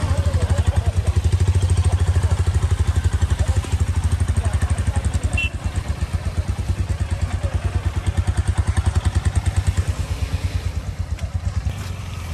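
KTM 390 Adventure's single-cylinder engine running at low revs with an even, fast thudding pulse as the bike creeps along an icy road, dropping away and quieter near the end.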